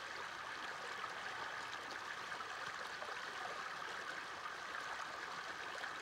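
Small stream running steadily: a constant trickling rush of water.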